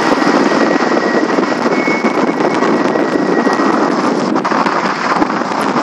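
Loud, steady rush of wind and water on an open microphone beside foiling race catamarans in a strong breeze, full of small crackles of spray. A faint steady whistle runs through the first few seconds.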